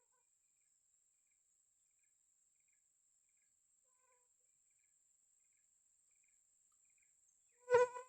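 A faint, steady, high-pitched insect trill, like a cricket. Near the end comes a short, loud, pitched buzz or hum.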